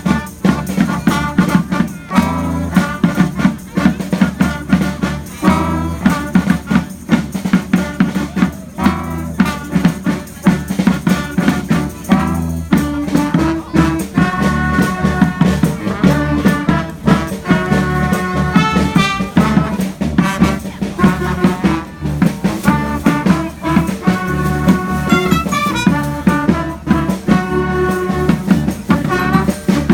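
Street brass band playing live: horns carrying a tune over a steady, driving drum beat.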